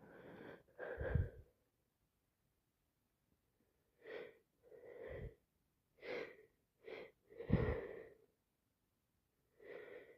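A sick woman sneezing three times, each time with a quick breathy intake just before the burst. The loudest sneeze comes about seven and a half seconds in, and a further breath begins near the end.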